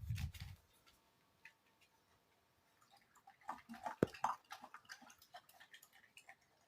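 Dog eating its breakfast from a bowl: faint, irregular crunches and clicks that begin about halfway through.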